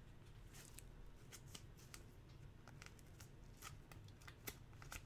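Faint, scattered light clicks and rustles of trading cards being handled and flicked through.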